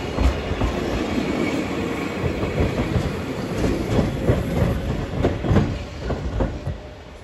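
Single-car Eizan Electric Railway electric train (car 724) pulling away from the station, its wheels rumbling and clacking over the rail joints and points in several quick clusters. The sound fades near the end as the train recedes.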